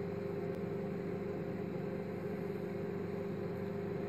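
Severin 700 W microwave oven running, a steady electrical hum from the oven at full power.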